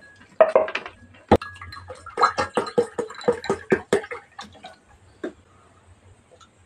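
Wet mouth noises of eating close to the microphone: a rapid run of short squelching mouth sounds, about five a second, lasting a couple of seconds, with a sharp click just over a second in.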